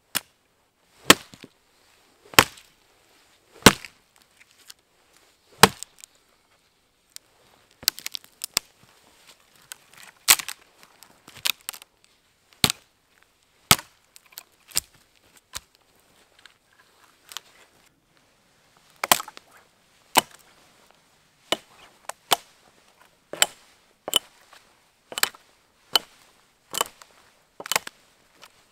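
Axe chopping a dead fallen log: a long series of sharp, crisp strikes into the wood, about one a second, with a short lull partway through and then a steadier run of blows near the end.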